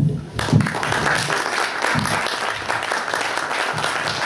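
Audience applauding, breaking out about half a second in, at the end of a speaker's talk.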